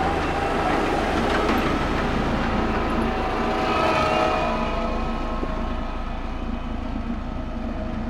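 Diesel engines of Caterpillar single-drum road rollers running steadily as a smooth-drum roller passes close by. The sound eases slightly in the second half as the roller moves away.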